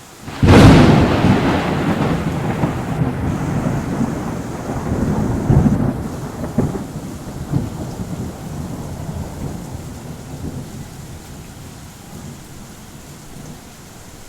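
A thunderclap breaks suddenly about half a second in, then rolls on as a long rumble with a few louder swells between five and seven seconds in, fading slowly. Steady rain hisses underneath.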